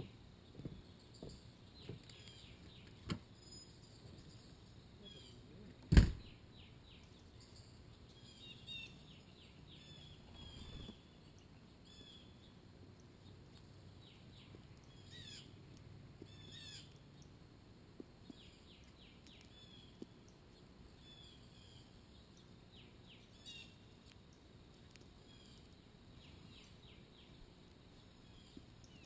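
Songbirds chirping: short quick high notes in clusters, most of them between about eight and seventeen seconds in. A few small clicks come near the start, and one sharp knock about six seconds in is the loudest sound.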